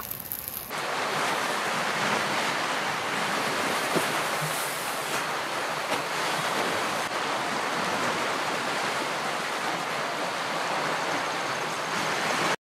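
Steady wash of sea waves breaking against a rocky shore. It starts suddenly under a second in and keeps an even level throughout.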